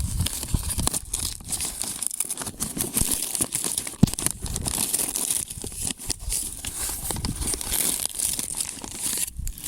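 Firecracker packaging being handled and opened: irregular crinkling and tearing, with one sharper click about four seconds in.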